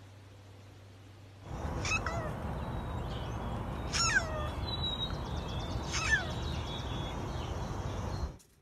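Flame point Siamese cat meowing three times, about two seconds apart, each call falling in pitch, over steady background noise.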